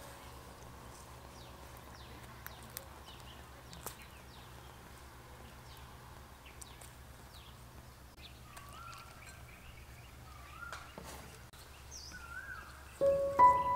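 Faint birds chirping and calling over quiet outdoor background with a low steady hum. Music comes in near the end.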